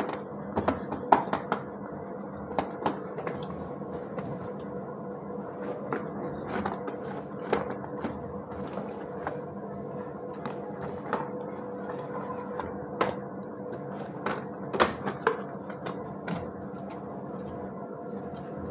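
The box and packaging of a mini portable fan handled and opened by hand: scattered taps, clicks and rustles over a steady low hum.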